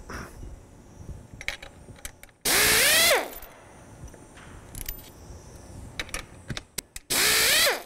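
Handheld air-powered nut runner backing off the bolts on a diaphragm dampener's housing. It runs in two short bursts of about a second each, one about two and a half seconds in and one near the end. Each is a hiss with a whine that rises in pitch and falls away as the tool stops, with small clicks of handling between the bursts.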